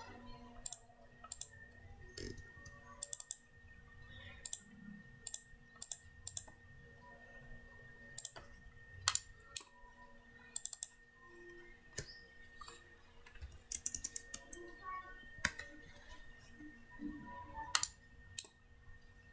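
Computer mouse clicks and keyboard key presses, sharp and irregular at about one or two a second, with a quick run of keystrokes about 14 seconds in, over a faint steady hum.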